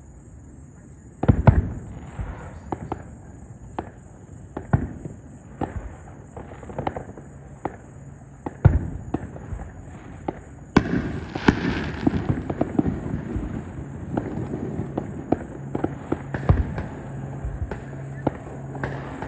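Aerial fireworks display: a string of sharp bangs and crackling pops at irregular intervals, the loudest bang about a second in. A denser, continuous background noise sets in about eleven seconds in.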